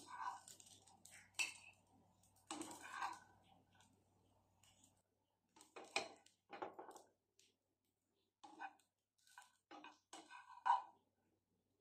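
Plastic spatula scraping and knocking in a nonstick frying pan as fried rice is scooped out onto a plate: a string of short, irregular scrapes and taps, the loudest near the end.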